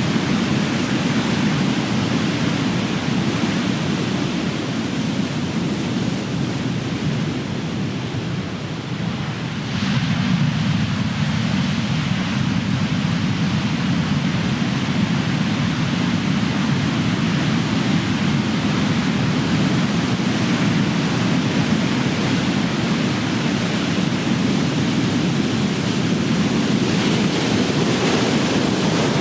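Big ocean waves crashing on the shore in a continuous rush of surf. The wash eases for a few seconds, and then a fresh wave breaks about ten seconds in.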